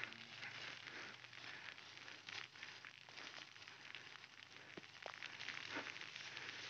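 Thin plastic rain poncho being pulled on and shifting, rustling and crackling faintly.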